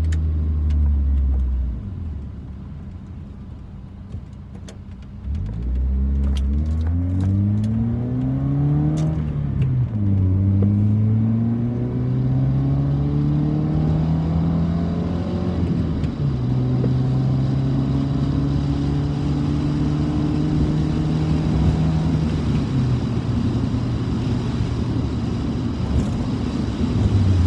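1991 Honda Prelude Si's four-cylinder engine heard from inside the cabin. It drops to a quiet idle for a few seconds, then pulls away, its pitch rising twice with a sudden fall at each gear change. It then holds steady at cruise and eases off a little near the end.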